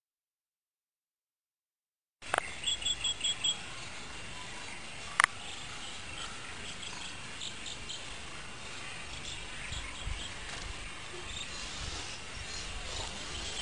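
Silence for about two seconds, then outdoor ambience: a steady background hiss with insects chirping in short, rapid runs of high notes. A single sharp click sounds about five seconds in.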